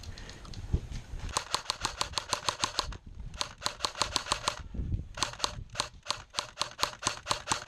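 Airsoft gun firing in three long strings of rapid, evenly spaced shots, about eight a second, with short pauses between strings.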